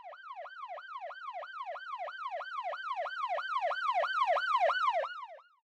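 Police car siren in a fast yelp, its pitch sweeping up and down about four times a second. It grows louder, then fades out near the end.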